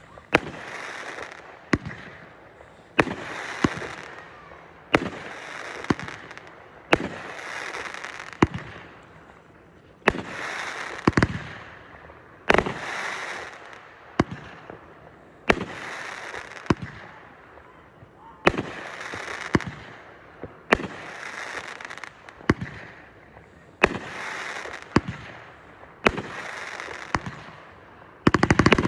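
Consumer fireworks firing shot after shot, about one every two seconds: each a sharp report followed by about a second of fading noise, the pattern of a multi-shot cake.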